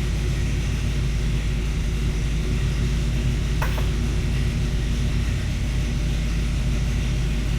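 1983 Cutlass Hurst/Olds V8 idling with a steady low rumble.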